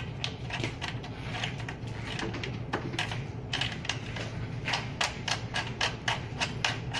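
Quick, irregular metallic clicks of a nut being spun on by hand onto the kickstand's mounting bolt of an electric bike, the clicks coming thickest in the second half.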